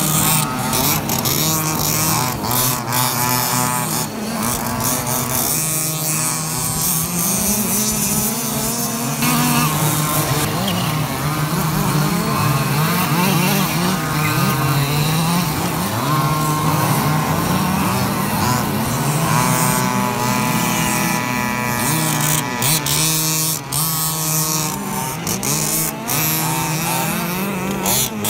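Several large-scale petrol RC cars racing, their small two-stroke engines revving up and down and overlapping one another without a break.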